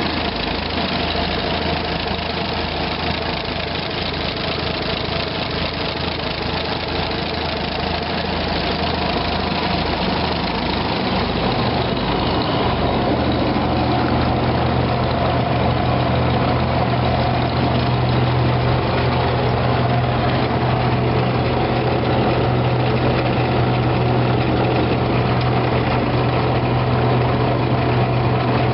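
Tractor engines running steadily: a Farmall 300 driving a flat belt that turns over the engine of a 1936 International Harvester W-40, which is being limbered up after thirty years unused. About twelve seconds in, a deeper steady hum comes in and the sound grows a little louder.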